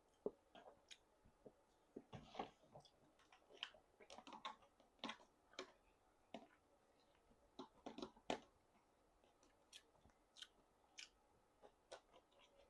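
Faint close-up chewing: irregular wet mouth clicks and smacks as food is munched.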